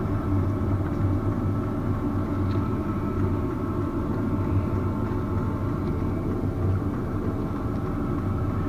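A steady low mechanical hum and rumble that holds unchanged throughout.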